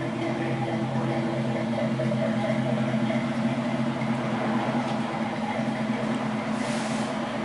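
Car engine idling steadily, an even hum with no revving.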